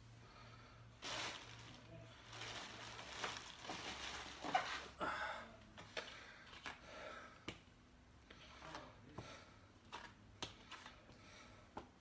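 Faint scattered rustles, light scrapes and clicks of a blue buffing pad being handled and rubbed over a waxed pine tabletop, over a low steady hum.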